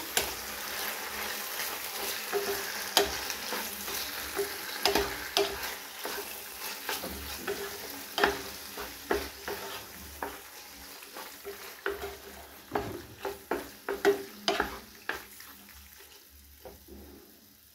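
A spatula stirring and tossing macaroni with sauces in a pan on the stove, with repeated scrapes and knocks against the pan over a light sizzle. The stirring grows quieter and stops near the end.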